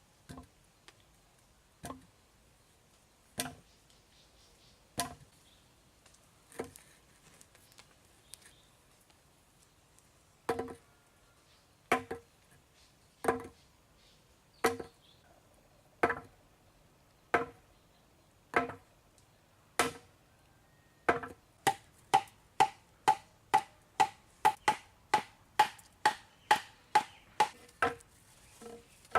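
Repeated chopping strikes against wood, each with a short hollow ring. They come about every one and a half seconds, then speed up to about two a second for the last third.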